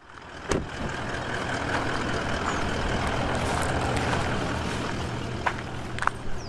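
Steady rushing road noise of a motor vehicle with a low engine hum, easing off slightly near the end. A sharp click comes about half a second in.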